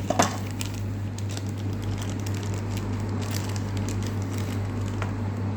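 Steady low electrical hum, with a few light clicks of handling near the start.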